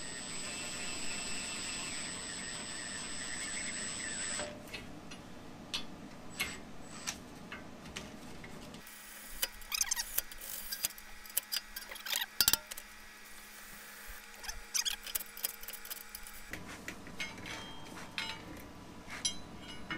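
Cordless impact wrench running at a low setting for the first few seconds, spinning lug nuts onto wheel-spacer studs, with a steady high whine. It stops, and scattered sharp metal clicks and clinks of the socket, nuts and tools follow.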